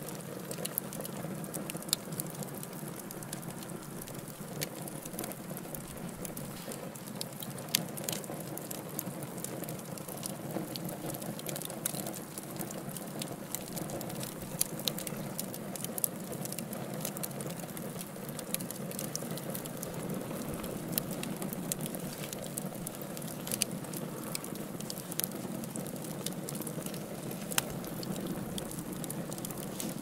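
Wood fire in a fireplace crackling, with frequent sharp pops and snaps, a few louder than the rest, over a steady low rush of the flames.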